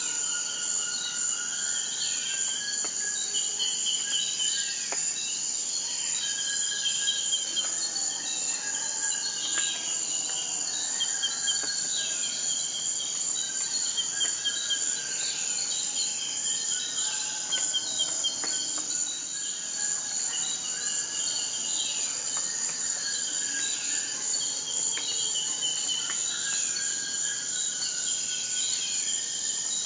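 A steady, high insect chorus, like crickets, trilling without a break, with birds calling in short repeated chirps and down-slurred notes over it.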